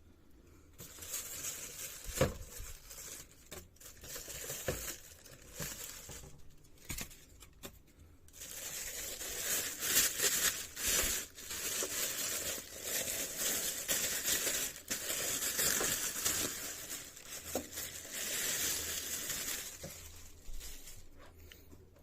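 Packaging being unwrapped and handled: crinkling and rustling with scattered small knocks. It is heaviest through the middle and latter part, then dies away near the end.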